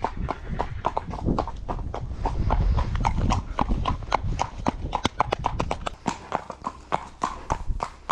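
Hooves of a ridden horse clip-clopping in a steady rhythm, several strikes a second, with a low rumble underneath for the first part.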